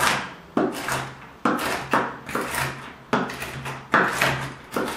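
Kitchen knife chopping crunchy pecans on a bamboo cutting board: about eight sharp, irregular strikes of the blade through the nuts onto the wood.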